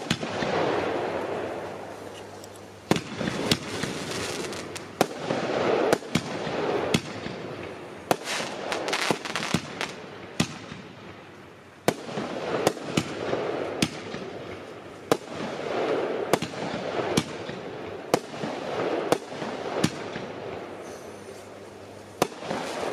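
Weco Casino Royal 36-shot, 25 mm F2 firework battery firing: a rapid series of sharp shell bursts, about one to two a second, each trailing into a wash of noise.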